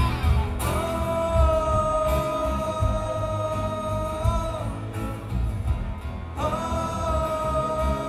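Live rock band playing with drums, bass and electric guitars, under a voice holding two long sung 'ooh' notes of about four seconds each, the second starting near the end.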